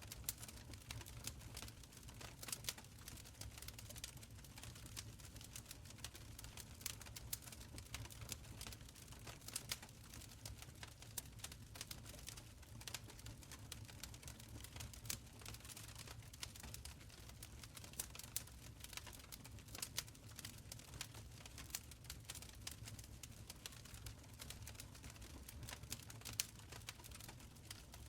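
Wood fire burning in a stone fireplace: a soft low rumble under irregular small crackles and pops.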